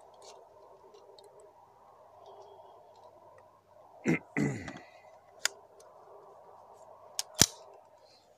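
Remington 597 semi-automatic .22 rifle: a knock with a short rattle about four seconds in, a single sharp click a little later, and two sharp clicks near the end, the second the loudest.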